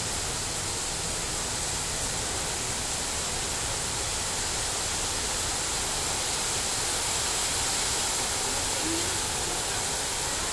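Heavy rain falling in a steady, unbroken hiss.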